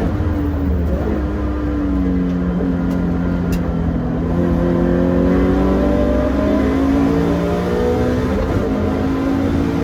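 Toyota 86 (ZN6) with its 2.0-litre FA20 flat-four engine running on track. The engine note drops over the first couple of seconds, holds, then rises slowly and steadily as the car accelerates.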